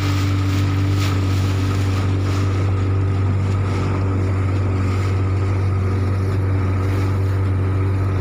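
Pongrass Surfmaster runabout under way, its motor running at a steady cruising speed as a constant low drone, with wind on the microphone and water noise from the hull.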